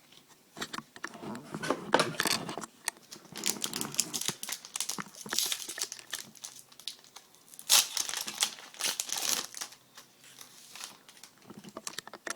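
Crackling and crinkling of a hockey card pack wrapper as it is torn open and handled, in irregular bursts with the loudest crackles about two seconds in and near eight seconds.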